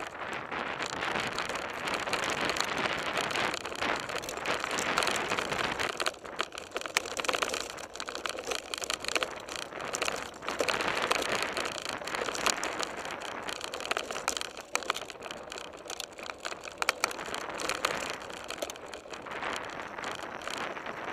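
Mountain bike riding a rough gravel and dirt trail, heard from a camera mounted on the bike: tyres crunching on gravel and wind on the microphone, with frequent rattles and knocks as the bike runs over bumps.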